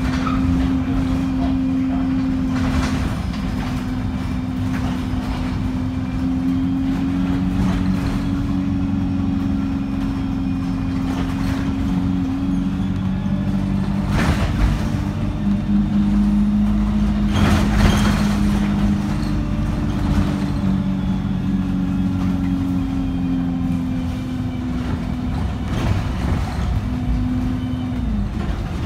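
KMB bus under way: engine and driveline hum with a steady tone that drifts slowly up and down in pitch, over road rumble. A few brief knocks and rattles come through, and the tone drops near the end.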